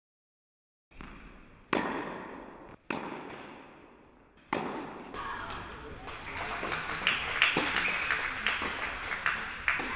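Tennis balls struck by rackets in an echoing indoor hall: three sharp hits about a second apart, then quicker, busier knocking that grows louder.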